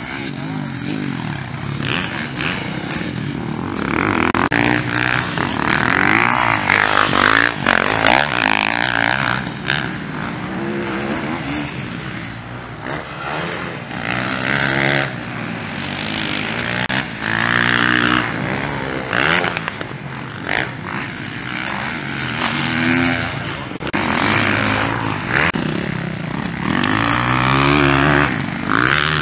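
Motocross bike engines revving up and dropping back again and again as the riders open and close the throttle, with several louder swells as bikes pass close.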